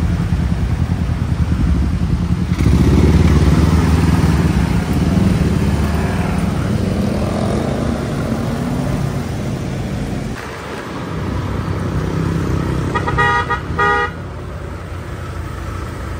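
Motor scooter engines running in street traffic, growing louder about two and a half seconds in as the scooters pull away from a junction. About thirteen seconds in, a vehicle horn gives a quick run of short beeps.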